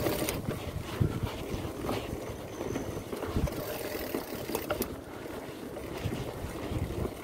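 Mountain bike riding over a bumpy dirt singletrack: a steady low rumble of tyres and wind on the microphone, with scattered clicks and knocks as the bike rattles over bumps.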